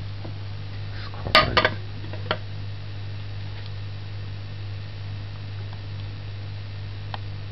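A ceramic plate set down on an aluminium pot as a makeshift lid: two sharp clinks about a second and a half in, then a lighter tap a second later, over a steady low hum.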